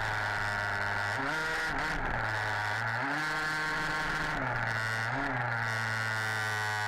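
Two-stroke petrol engine of an HPI Baja 5B 1/5-scale RC buggy, buzzing at high revs as the throttle is worked. Its pitch drops and climbs again every second or so.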